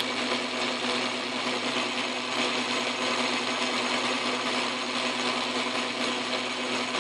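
Atlas metal lathe running steadily under power feed while the tool takes a turning cut along a metal shaft, a constant whine from the motor and gearing over the hiss of the cut.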